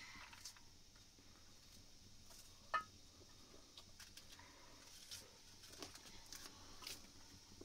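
Near silence with faint scattered ticks and taps, and one sharper click about three seconds in.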